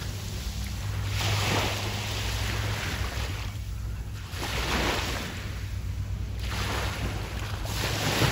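Waves breaking on a beach, each wash of surf swelling and falling away about every three seconds, over a steady low hum.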